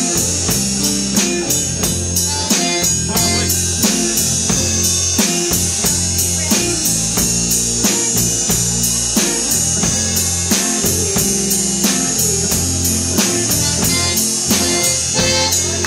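Live band playing with a steady drum-kit beat, electric guitar and electric keyboard.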